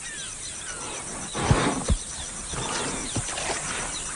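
Wild animal sounds: a short rough snarl with two low thuds about a second and a half in, and another thud later, over steady pulsing insect buzz and short downward-sliding chirps.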